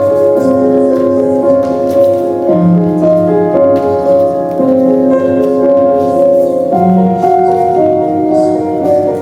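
Music with sustained piano or keyboard notes, the chords changing every second or so.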